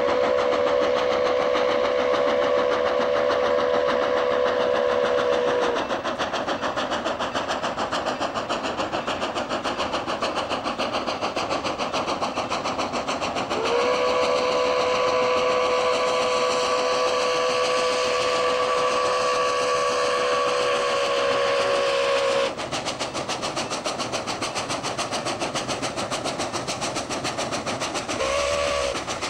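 Milwaukee Road 261, a 4-8-4 Northern steam locomotive, blowing its steam whistle as it runs toward the listener: a long blast that ends about six seconds in, a second long blast of about nine seconds, and a short toot near the end, each a chord of several steady tones. The locomotive and train run steadily underneath.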